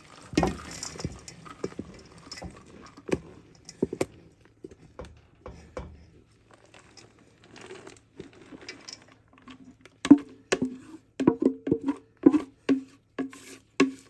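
A spoon scraping the sticky mixture out of a cooking pot into a mixing bowl, with light scrapes and taps. From about ten seconds in, a quick run of sharp knocks with a hollow ring as the spoon is rapped against the pot to knock the mixture off.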